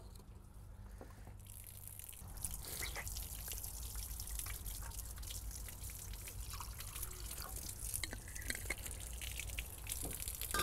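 Water trickling and dripping from the tap of a plastic water canister as hands are washed under it, starting about a second and a half in.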